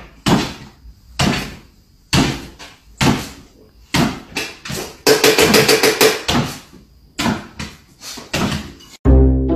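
A series of sharp thumps, roughly one a second, each with a short ringing tail, broken about five seconds in by a second and a half of rapid rattling.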